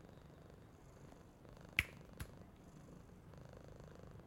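A cat purring faintly and steadily, with two sharp clicks a little under half a second apart about halfway through.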